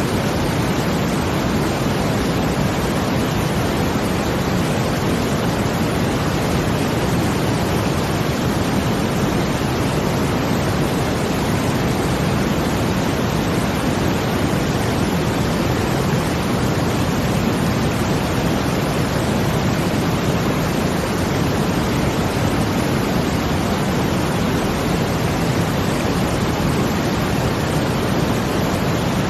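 Brown noise blended with rushing water: a steady, unchanging rush, heaviest in the low end.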